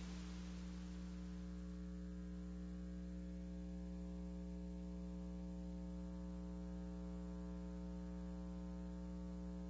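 Steady electrical hum with a stack of overtones, constant in pitch and level throughout, and nothing else heard over it.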